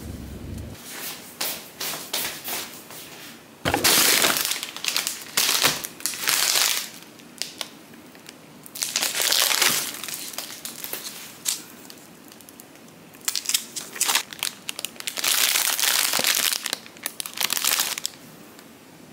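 Plastic grocery wrapping and bags crinkling and rustling in irregular bursts as groceries are unpacked by hand onto a table.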